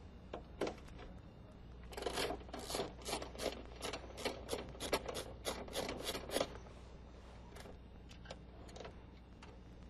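Ratchet wrench clicking in a quick run of strokes, about three a second for several seconds, as it undoes the lower nut holding the window glass to the power window regulator.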